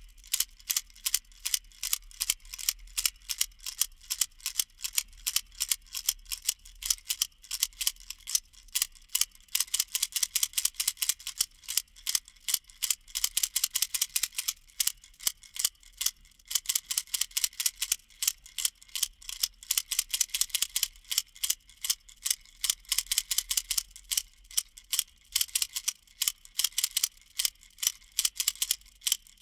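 Baby rattle shaken steadily: rapid, bright clicking of its loose beads, several shakes a second with no let-up.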